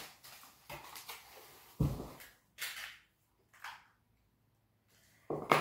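Handling noises: a few short knocks and rustles, the loudest a dull thump about two seconds in and a sharp knock near the end.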